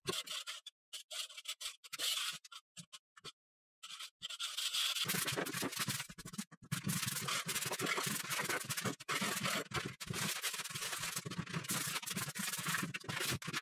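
Scraping and rubbing in short bursts as a spatula scrapes old paper wallpaper off a wall. From about five seconds in it gives way to continuous, rapid brushing and scraping as a broom sweeps the torn wallpaper scraps across the floor.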